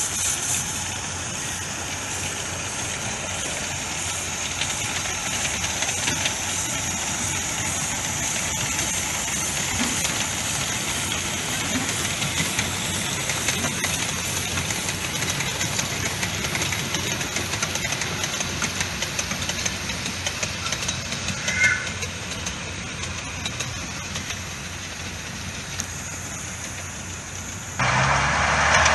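Miniature steam locomotives double-heading a passenger train past, giving a steady noisy run of engine and wheel sound. A short high-pitched tone sounds about 21 seconds in, and near the end the noise jumps suddenly louder.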